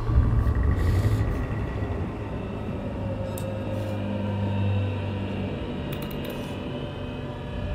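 A low, steady rumbling drone with faint held tones above it and a few soft clicks.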